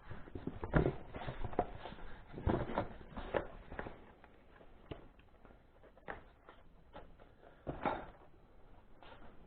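Kitchen clean-up handling noise: irregular knocks, clatter and rustling of items being moved and put away on a counter, with a few louder knocks about a second in, around three seconds in and near the end.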